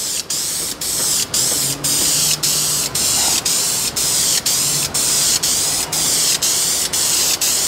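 Aerosol can of VHT high-temperature clear coat spraying: a steady hiss broken by brief gaps about twice a second.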